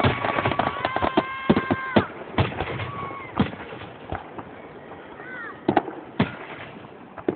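Fireworks display: aerial shells bursting in a quick irregular string of sharp bangs, densest in the first two seconds and thinning out after. Whistling fireworks give steady high whistles that stop about two seconds in, with a couple of short whistle curls later.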